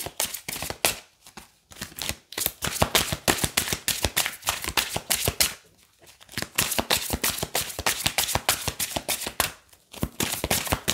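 A deck of oracle cards being shuffled by hand, a rapid run of card flicks and slaps broken by short pauses about 1.5 s in, near 6 s and near 10 s.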